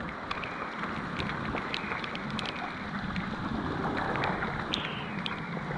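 Water running and dripping down cave rock and vines: a steady rush of water with scattered sharp drips throughout.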